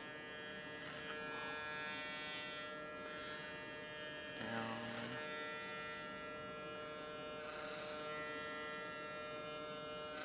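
Electric hair clipper humming steadily as it cuts a rough taper up the back of the neck, its adjustable blade lever opened all the way. Short rasps come now and then as the blade bites through hair, with a louder one about halfway through.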